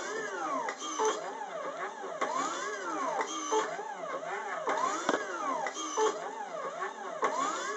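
Stepper motors of a three-axis CNC wire-bending machine whining in repeated rising-and-falling pitch sweeps as they speed up and slow down, feeding and bending wire in a cycle that repeats about every two and a half seconds. A sharp click comes about five seconds in.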